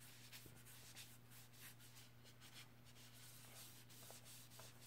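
Faint, repeated strokes of a cloth rag rubbing oil into a hardwood hatchet handle, over a steady low hum.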